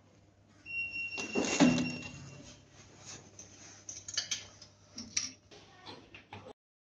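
Metal clunks and rattles from a carriage on linear rails being pushed by hand on the printer's aluminium frame, the loudest clunk about a second and a half in, followed by scattered knocks. A steady low electrical hum runs underneath, and a high steady electronic beep tone sounds for about two seconds early on.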